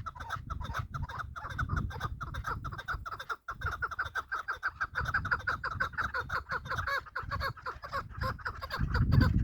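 Chukar partridge calling: a fast, continuous run of short clucking notes, about six a second. Low rumbling noise underneath swells near the end.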